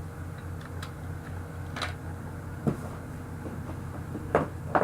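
Small handling sounds: a few brief clicks and knocks of products being picked up and set down, over a steady low room hum.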